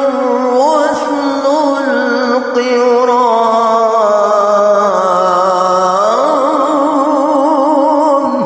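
A solo voice singing a sholawat in long melismatic Arabic runs. It ends on a long held note with wide vibrato that stops near the end.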